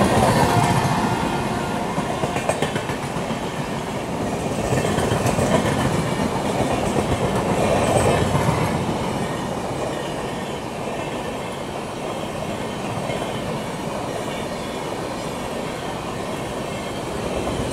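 Passenger train running along the track, heard from aboard: a steady rumble with the wheels clicking over rail joints. A faint steady tone fades out just after the start.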